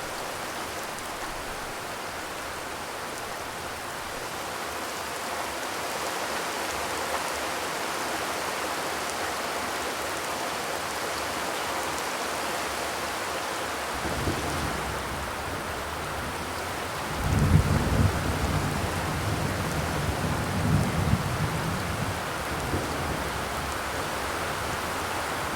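Steady rain falling, an even hiss. About halfway through a low rumble joins it, growing louder and uneven in the last third.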